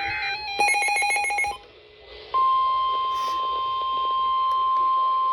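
NOAA Weather Radio emergency alert sequence: a short buzzy burst of digital alert-header data, a brief pause, then the steady single-pitch 1050 Hz warning alarm tone starting about two seconds in. The tone signals that an urgent warning is about to be read.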